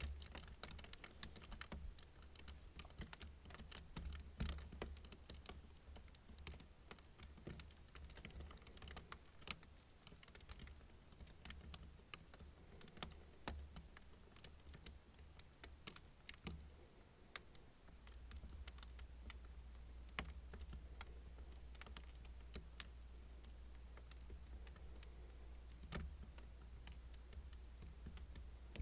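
Kinetic sand being cut and crumbled: faint, crisp crackles and ticks, thick at first and thinning out in the second half, over a low steady hum.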